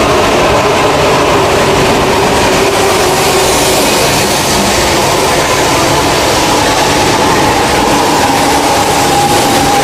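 An E4 series double-decker Shinkansen (MAX Yamabiko) running along a station platform. It gives a steady, loud running noise with a whine that slowly falls in pitch.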